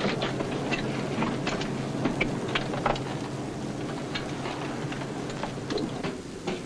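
Steady hiss and low hum with scattered sharp clicks, the background noise of a 1940s optical film soundtrack.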